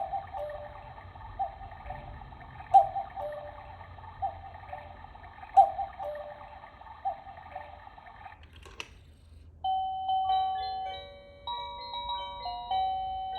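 Quartz cuckoo clock counting the hour: an electronic two-note falling cuckoo call repeats about every one and a half seconds, six times. About nine seconds in, after a click, the clock starts playing a simple electronic chime melody.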